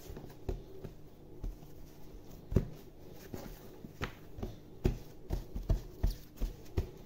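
Hands pressing and stretching soft bread dough out on a floured worktop: a series of irregular thumps, the loudest about two and a half seconds in, coming closer together in the last two seconds.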